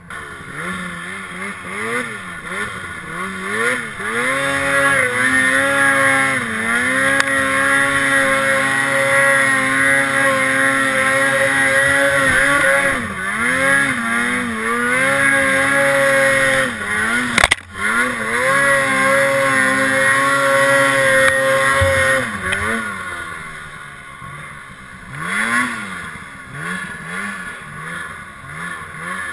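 Snowmobile engine revving up and running hard at high revs through deep snow, easing off briefly several times. There is a sharp click a little past halfway, and the revs drop back to lower, up-and-down throttle blips for the last several seconds.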